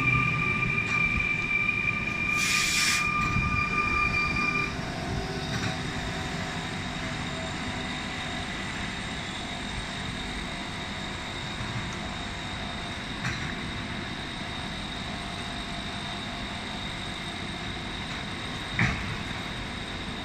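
Electric train passing close by, with a steady high whine over a rumble and a short hiss about two and a half seconds in. The whine stops about five seconds in, leaving a quieter steady rumble, broken by a brief sharp knock near the end.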